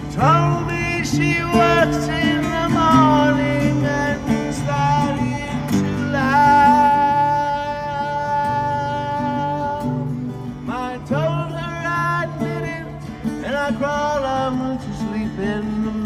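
A man singing long, held notes into a microphone, accompanying himself on acoustic guitar.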